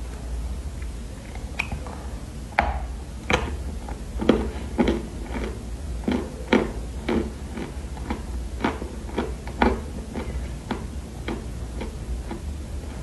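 Close-miked chewing of Chinese loess clay: a run of sharp crunches, about two a second, starting a couple of seconds in and thinning out near the end, over a steady low hum.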